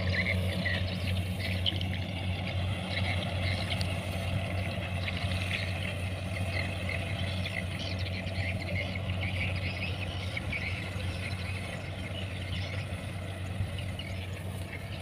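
Kubota rice combine harvester running steadily as it cuts: a constant low engine drone with a busier, irregular higher chatter over it.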